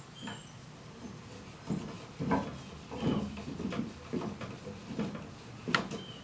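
Irregular wooden knocks, clicks and scrapes of spindles and tools being handled at a workbench, with a couple of sharper knocks about two seconds in and near the end.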